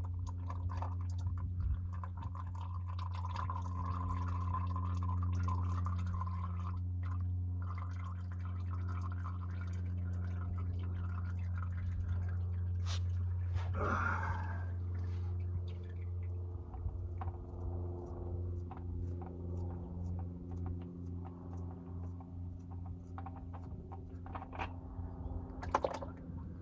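Engine oil pouring out of the 3.0L Duramax's oil filter housing into a drain pan after the filter is unscrewed: a steady splashing stream that turns into an uneven, pulsing flow about two thirds of the way through, over a steady low hum, with a couple of brief knocks.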